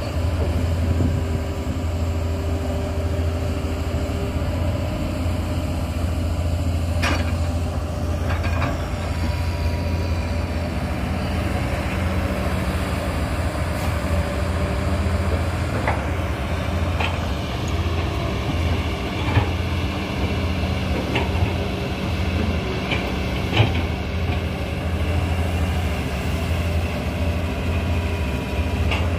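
Hitachi Zaxis 200 hydraulic excavators' diesel engines running steadily with a low drone while digging earth. Occasional short sharp knocks come from the machines at work.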